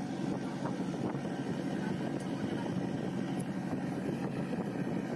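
Inboard engine of a wooden klotok boat running steadily under way, a continuous even drone.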